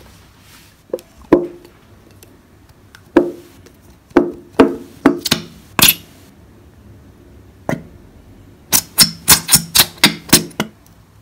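Plastic glue bottle being squeezed and handled while glue is pushed into a latex balloon: a series of sharp knocks and pops, scattered at first, then a quick run of about eight near the end.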